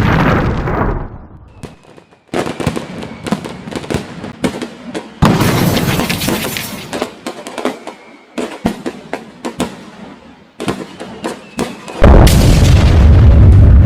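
Explosion sound effects: repeated sudden blasts trailing into rapid crackling pops, ending with one very loud, deep, rumbling boom about twelve seconds in.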